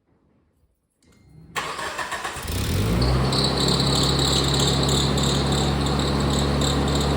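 1997 Geo Tracker's four-cylinder engine cranked and started about a second and a half in, then running steadily with a high-pitched squeal over it, which the owner puts down to a failing alternator bearing that may seize up as it warms.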